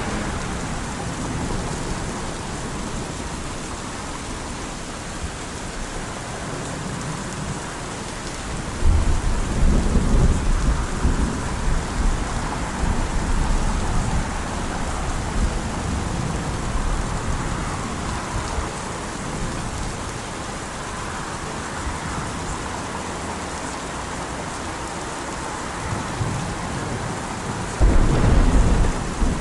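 Steady rainfall with rolling thunder: a deep rumble breaks in about nine seconds in and lasts a few seconds, and another comes near the end.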